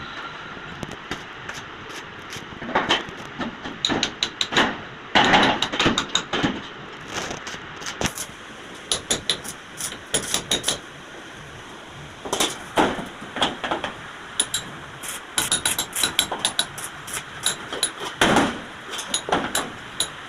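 Irregular metal knocks and taps, as of hammering and handling steel parts during gate fabrication, with a few louder strikes among many lighter ones.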